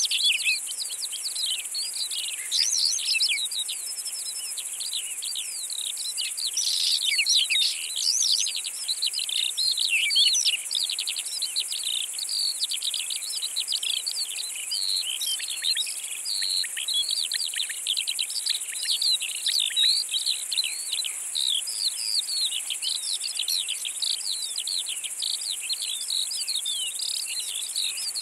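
Summer grassland field sound: a steady high insect drone, typical of grasshoppers or bush-crickets stridulating, with songbirds chirping rapidly and continuously over it.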